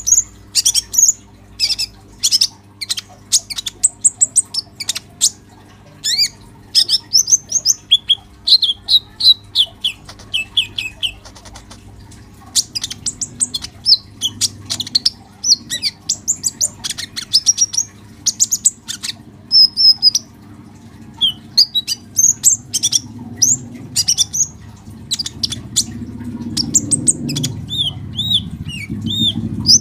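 Male kolibri ninja (van Hasselt's sunbird) singing hard: rapid runs of high, thin chirps and short sweeping trills, several notes a second, over a steady low hum. A low rumble builds over the last few seconds.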